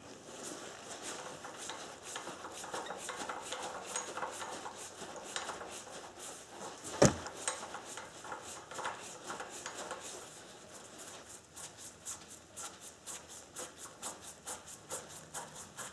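Ratchet wrench clicking as it turns a jaw puller's screw, drawing a worm gear off an engine's crankshaft nose. The clicks come quicker and more even in the second half, with one sharp, louder click about seven seconds in.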